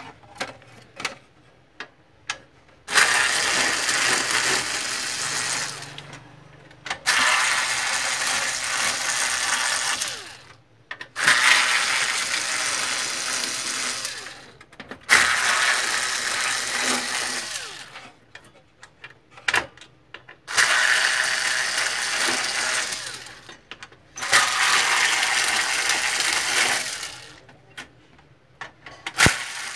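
Screwdriver backing out screws, in six runs of about three seconds each with short pauses between, and a few small clicks of parts being handled at the start.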